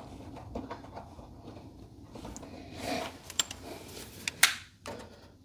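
Light clicks and two short scrapes of hand-handled garage door hinge hardware.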